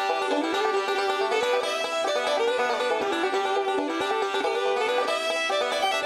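Background music: a quick bluegrass-style tune of plucked strings, with a banjo to the fore.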